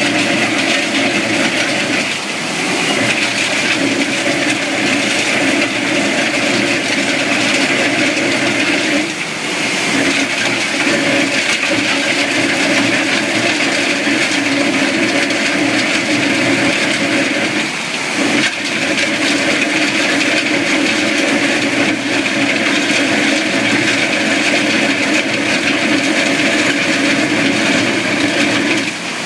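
Takeuchi TL12R2 compact track loader working with a Simex PL 450 wheel trencher cutting a narrow trench, with an industrial vacuum drawing off the cut material. The machinery runs loud and steady, dipping briefly a few times.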